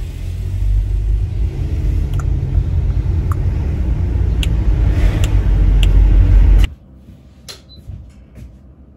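Low road-and-engine rumble inside a moving car's cabin, growing a little louder, with a few light ticks. It cuts off abruptly about two-thirds of the way through, leaving quiet room tone with a few faint knocks and rustles.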